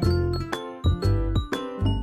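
Background music with a steady beat and bright plucked or keyboard notes.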